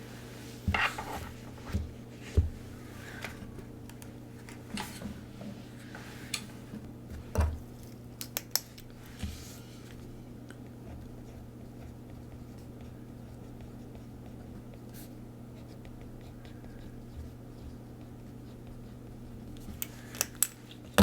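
Stationery being handled at a desk: light clicks, taps and paper rustles, scattered through the first half and again near the end, over a steady low hum.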